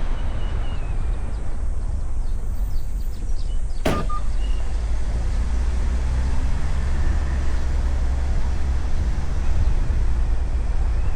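Wind buffeting the microphone over a steady low rumble, with one sharp click about four seconds in.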